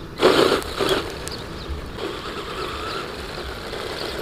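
Radio-controlled buggy running over loose gravel and dirt, with two loud gusts of grit-and-tyre noise near the start, then a fainter motor whine as it drives on.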